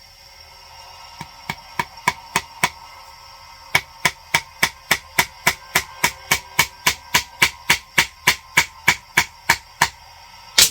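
Small hammer tapping a cut nail through a leather strap into the end of a powder horn: a few light taps, a short pause, then a steady run of about three taps a second, ending with one harder blow.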